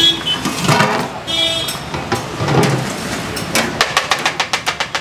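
Steel serving dishes and a ladle clattering while food is served into a steel plate, ending in a quick even run of sharp taps, about eight a second, over background chatter and traffic.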